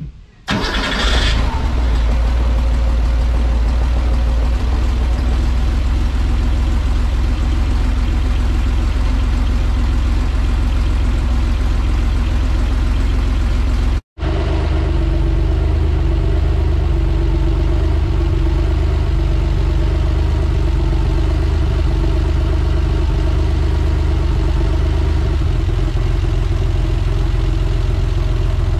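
The air-cooled 3.0-litre flat-six of a 1983 Porsche 911SC starts about half a second in and settles into a steady idle. It is being run to bring the freshly changed oil up to operating temperature. The sound drops out for an instant about halfway through.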